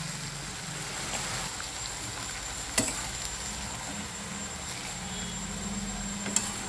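Flat beans and aubergine in mustard paste sizzling in a metal kadai while a metal spatula stirs them, with a sharp clink of the spatula on the pan about three seconds in and another near the end.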